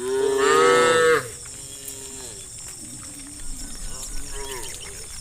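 Cows mooing: one loud, drawn-out moo lasting about a second at the start, then several fainter moos.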